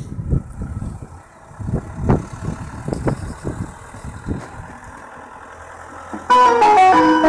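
Ice cream van's chime starting up loud near the end, playing a tune of clear pitched notes, after the Ford Transit van's engine is heard approaching with a low, steady hum. Irregular low rumbles come before the hum.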